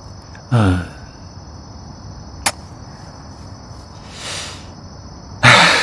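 Steady high chirring of crickets. Over it come a short wordless vocal sound about half a second in, a single sharp click midway, and a soft breathy exhale followed by a louder sigh near the end.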